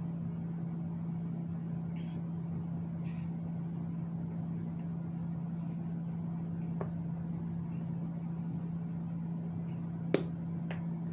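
Steady low hum over a faint hiss, with two sharp clicks about ten seconds in.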